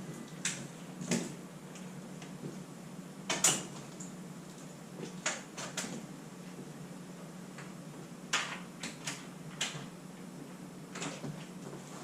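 Scattered short knocks and clicks, about a dozen, the loudest about three and a half seconds in, over a steady low hum.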